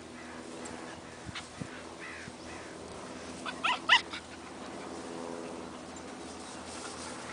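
A dog giving three quick, high-pitched yips in a burst about three and a half seconds in, over a faint steady low hum.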